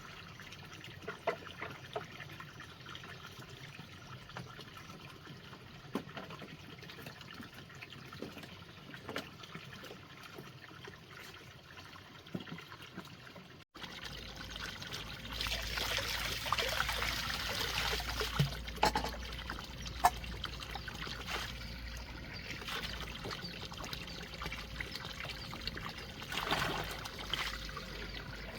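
Water trickling steadily, with scattered small clicks and knocks. It grows louder and fuller after a sudden break about halfway through.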